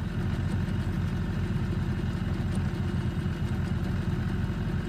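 Boat's outboard motor idling at trolling speed, a steady low rumble.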